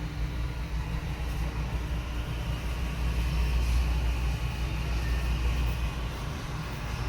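Steady low rumble with a faint hiss of store background noise, heard while walking through the aisles, swelling a little about halfway through.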